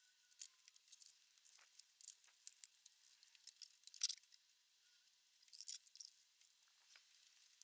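Faint, irregular small clicks and ticks, the loudest about four seconds in.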